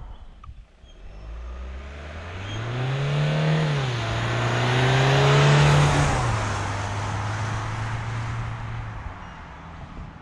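A 2020 Peugeot Expert van's 2.0-litre turbo-diesel four-cylinder accelerating hard. The engine note climbs, dips at a gear change about four seconds in, and climbs again to its loudest near six seconds. It then falls to a lower, steadier note and fades away.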